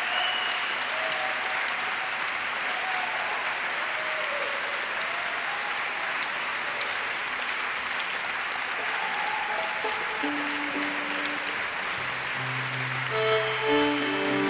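Concert audience applauding steadily. About ten seconds in, music with sustained low notes fades in under the clapping and grows louder near the end.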